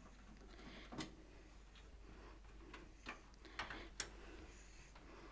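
Faint, scattered light clicks and taps, about half a dozen, the sharpest about a second in and about four seconds in, from hands handling a full-tower computer case.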